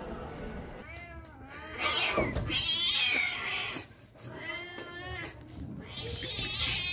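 Cats fighting and yowling: about four long, wavering wails one after another.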